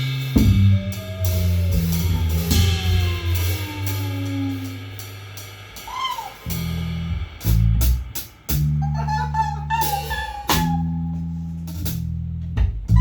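Live band playing an instrumental passage: electric guitar lines over bass and drum kit, thinning out partway through before the full band comes back in.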